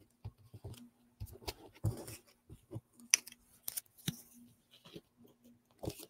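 Light, irregular clicks, taps and rustles of paper being handled: small paper strips are picked up and pressed down onto a scrapbook page on a tabletop.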